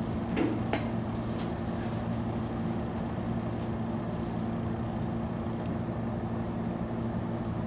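Steady low background hum of the room, several low tones held unchanged, with two brief clicks under a second in.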